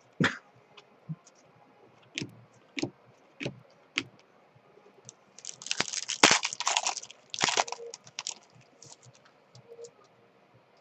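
Sports cards and card-pack wrappers being handled: scattered clicks and snaps, then a stretch of crinkling from about five and a half to eight seconds in.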